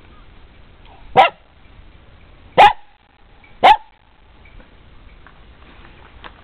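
Pet dog barking three times, short sharp barks about a second apart, barking for a treat instead of sitting.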